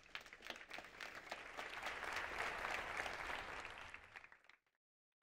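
Audience applauding. The clapping swells over the first two seconds, then dies away and cuts off about four and a half seconds in.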